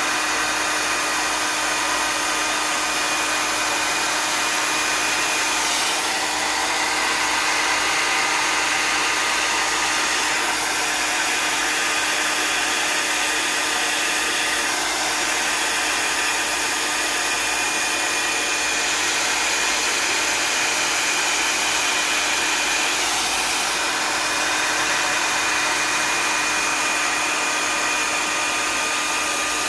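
Handheld hair dryer running steadily, blowing air to push wet acrylic paint across a canvas in a Dutch pour. It is a rush of air with a faint constant whine in it.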